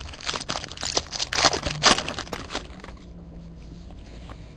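Bowman Chrome trading cards being shuffled and slid against one another in the hands: a quick run of crinkly clicks and rustles that dies down after about three seconds.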